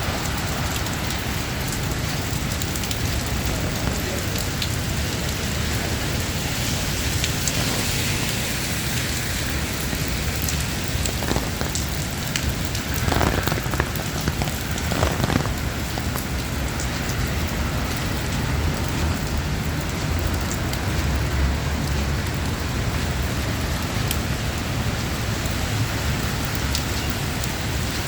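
Steady rain falling, with a few brief louder sounds about halfway through.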